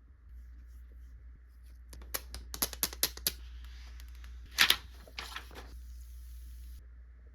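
A new iPad case being handled and fitted onto the tablet: a quick run of sharp plastic clicks about two seconds in, one louder crack near the middle, then a short scrape.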